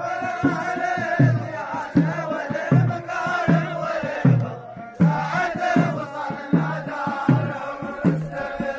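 Omani razha: a large group of men chanting a drawn-out line of sung poetry in unison over a steady beat of about one stroke every three-quarters of a second. The chant dips near the middle, then starts a fresh line.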